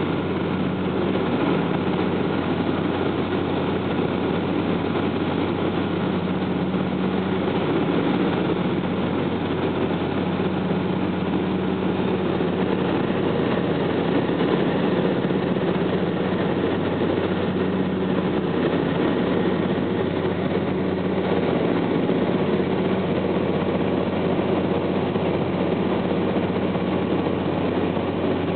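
Grumman Goose amphibian's twin engines and propellers in cruise, a steady, even drone heard inside the cabin with a constant low hum underneath.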